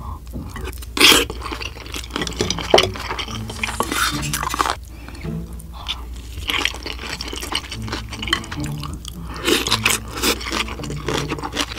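Eating sounds of a mouthful of rice: wet chewing and mouth noises, with a few sharp clicks and scrapes of a spoon and chopsticks. The loudest clicks come about a second in, near three seconds, and again near the end.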